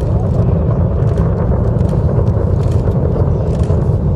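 Space Shuttle Endeavour's launch roar from its solid rocket boosters and main engines, heard from miles away as a loud, steady, deep rumble with faint crackling.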